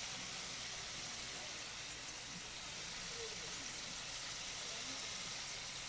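Sliced sweet potato sizzling in hot oil in a frying pan, a steady hiss of shallow-frying. The slices are browned and nearly cooked.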